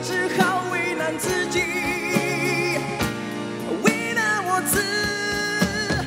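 Male vocalist singing a pop song live over a band, holding long notes with vibrato.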